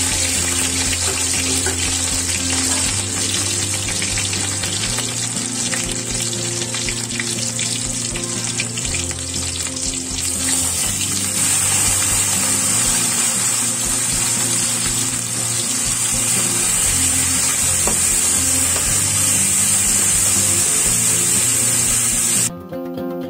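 Food frying in hot oil in a pan: a steady high sizzle with crackling, which cuts off abruptly near the end.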